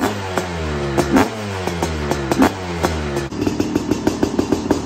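Honda CR500 two-stroke single-cylinder engine being blipped repeatedly, its pitch falling back after each rev, with sharp pops. For the last second and a half it settles into a rapid, even popping at low revs.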